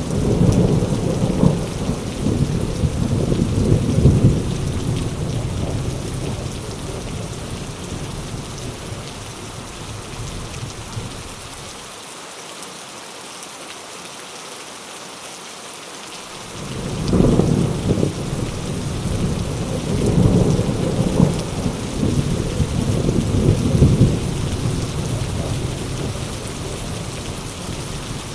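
Heavy rain falling steadily, with rolling thunder: a long rumble at the start that fades away, a few seconds of rain alone, then a second long roll of thunder beginning a little past halfway and swelling several times before it dies down.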